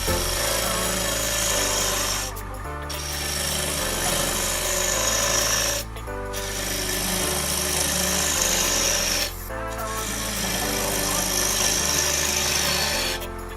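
A wood lathe with a turning gouge cutting into spinning sycamore, giving a continuous scraping hiss, under background music with a stepping bass line. The sound breaks off briefly about three times.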